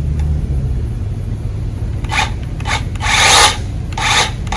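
Cordless electric chainsaw run in short bursts of the trigger, the chain spinning without cutting: four short rasping bursts from about two seconds in, the longest about half a second.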